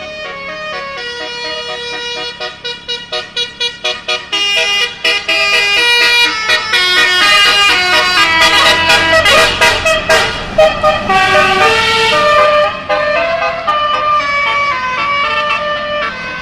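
Bus's basuri musical air horn playing a melody of held and changing notes, several tones sounding together. A quick stutter of short toots comes about three seconds in; it grows louder toward the middle and eases near the end.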